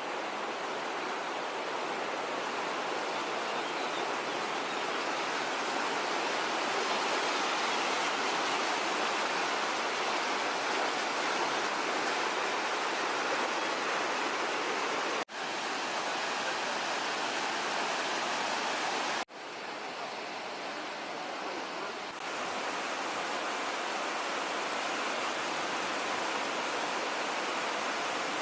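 Waterfall water rushing steadily as an even, dense noise. It breaks off abruptly twice, about 15 and 19 seconds in, and sounds duller for a few seconds after the second break.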